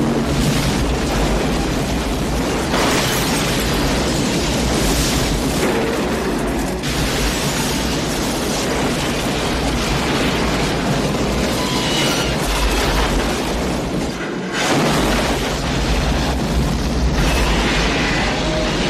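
Film soundtrack of a train crash: a continuous loud mass of explosions, booms and crashing, grinding metal, dropping out briefly about two-thirds of the way through.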